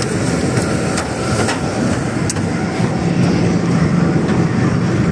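Steady engine drone on an airport apron, with a low hum that grows louder about three seconds in. A few faint taps sound over it.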